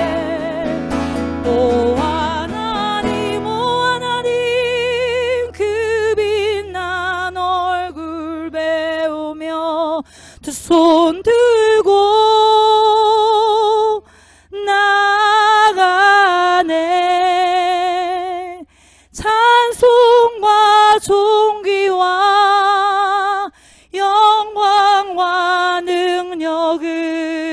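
A woman singing a slow worship song solo with vibrato, in long held phrases broken by short breaths. An acoustic guitar accompanies her in the first few seconds, then the voice carries on mostly alone.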